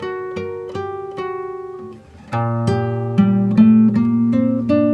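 Instrumental background music of plucked string notes in a picked melody; it dips briefly about two seconds in, then comes back louder with fuller low notes.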